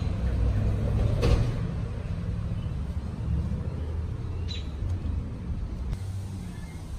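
A low, steady rumble with a sharp knock about a second in and a couple of faint clicks near the middle.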